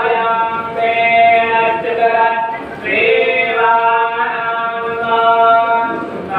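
Several men's voices chanting Sanskrit mantras together in long held notes. One phrase ends near the middle and the next begins.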